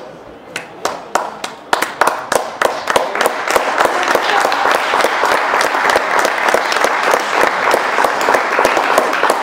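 Spectators clapping close by: a few separate claps about half a second in quickly build into steady applause.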